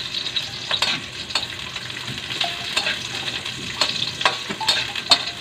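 Pork, garlic and ginger sizzling in hot oil in a metal wok, stirred with a metal spatula that scrapes and clicks against the pan at irregular intervals.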